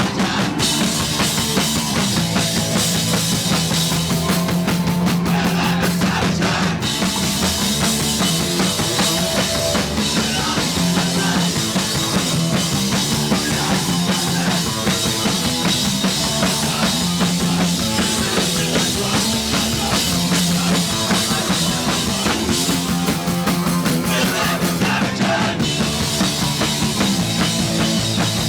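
Punk band playing live and loud: pounding drum kit, distorted guitar and bass. There are two short breaks in the cymbals and guitar, about six seconds in and near the end.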